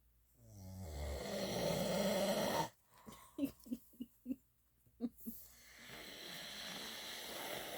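A person snoring: a loud rasping snore that starts low, swells and cuts off sharply after about two seconds, then a few short clicks, then a longer, quieter snore.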